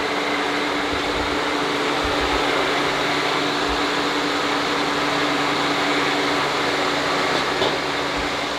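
Steady noise of a kitchen ventilation fan, with a faint steady hum in it.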